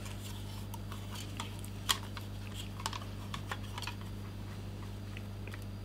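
Scattered small clicks and taps of a 2.5-inch hard drive and its mounting bracket being handled, the sharpest about two seconds in, over a steady low hum.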